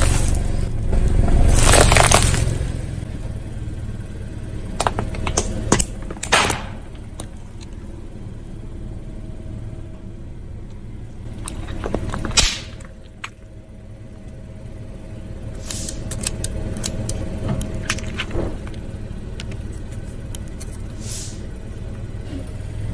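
A car tyre rolling slowly over small objects and crushing them, with a low engine rumble underneath. There is a series of sharp cracks and pops as plastic baubles and mesh-covered gel stress balls burst under the tyre, the loudest pop about halfway through.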